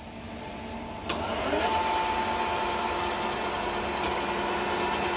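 Graziano Sag 17 lathe with a 6 hp three-phase motor running, then a sharp clunk about a second in as the spindle drive is engaged, and the headstock gearing spins up, rising in pitch and settling into a steady mechanical whine.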